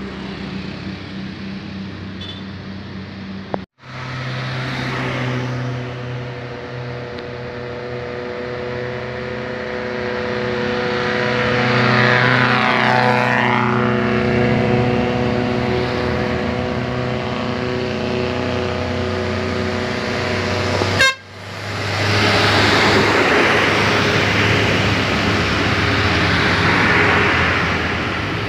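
Buses running uphill under load, with a Basuri telolet multi-tone bus horn sounding in several held tones. The sound cuts out abruptly about four seconds in and again about twenty-one seconds in.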